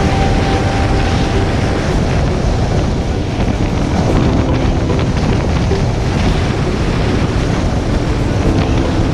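Heavy, steady wind noise buffeting the microphone of a moving motorcycle, with the bike's engine running underneath.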